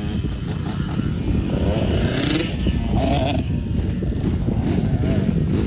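A motor vehicle engine running steadily under way, with a dense, unbroken low rumble throughout.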